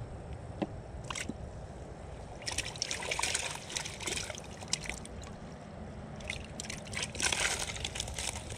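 Water trickling and splashing in two short spells, about two and a half seconds in and again near the end, over a low steady background.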